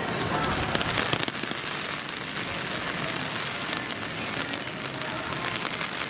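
Steady rain falling on city pavement: an even hiss with many small drop ticks, a little fuller in the first second.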